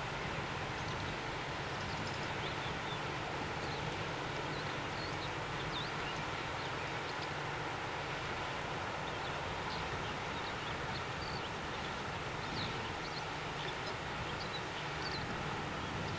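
Steady outdoor ambience dominated by a low, even engine drone, with faint short bird chirps scattered over it.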